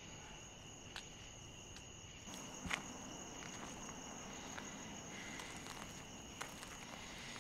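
Crickets chirring steadily and faintly, with a few soft footsteps on grass.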